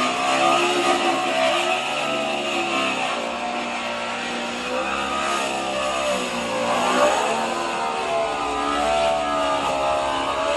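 Background music: several wavering melodic lines over sustained tones, cutting off abruptly at the end.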